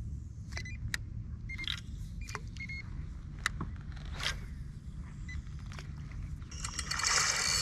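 Fishing rod and reel in use: scattered light clicks and ticks. Near the end comes a loud rushing whir from the reel as line pays out on a cast, over a low steady rumble.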